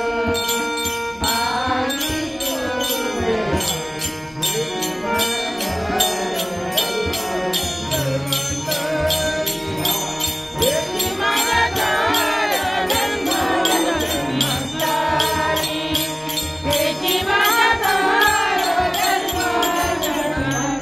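An elderly man singing a Marathi abhang, a devotional song, with a melody that rises and falls over small hand cymbals clashing in a steady beat and a held drone underneath.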